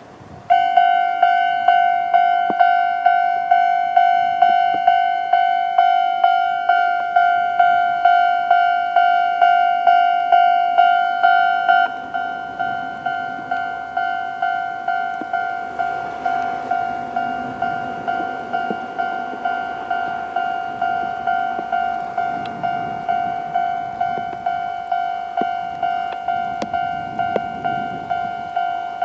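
Japanese railway level-crossing alarm of the older electronic type, ringing a repeated ding at about two and a half strikes a second, starting about half a second in. About twelve seconds in it drops in level and keeps ringing more quietly.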